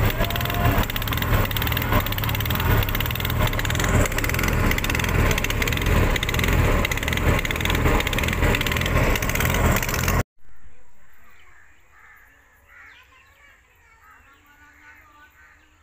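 Small air-cooled engine of a wooden river boat running, loud under wind and water noise. About ten seconds in it cuts off abruptly to a faint outdoor background with birds calling.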